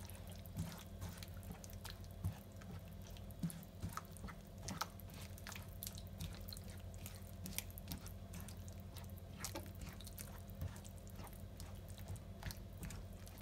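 Silicone spatula stirring a chunky tomato and vegetable sauce in a non-stick frying pan: faint wet squelching with irregular small clicks.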